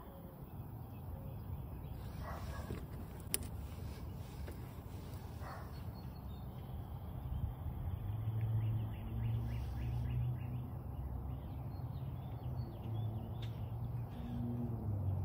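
Outdoor background: a steady low rumble with faint birds calling now and then, and a single sharp click about three seconds in.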